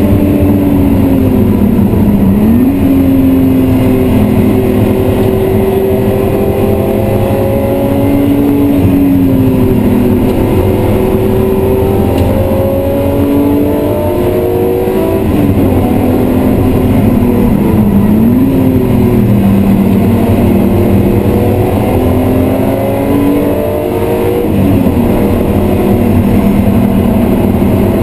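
BMW E36 M3's 3.0-litre straight-six heard from inside the cabin at track pace, revs climbing and falling through the gears, with sudden jumps in pitch at the gear changes. A steady rush of road noise runs underneath.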